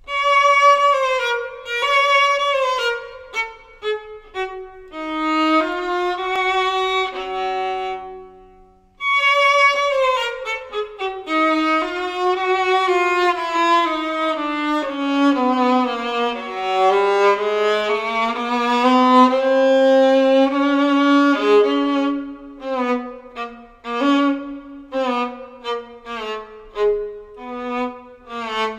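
Solo violin playing a melody: a phrase of notes, a brief break about eight seconds in, then a long smooth phrase with sliding pitch, turning to shorter, separated notes near the end.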